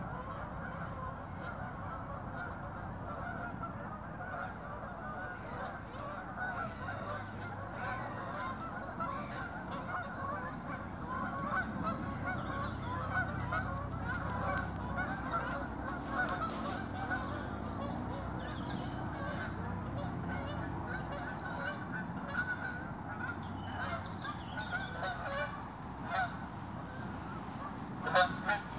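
A flock of geese honking continuously, many short calls overlapping. A few louder honks come near the end as geese fly overhead.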